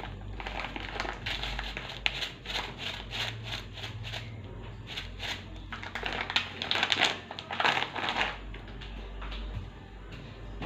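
Thin plastic bag crinkling and rustling as it is handled in the hands, in irregular crackles that are loudest past the middle and thin out near the end.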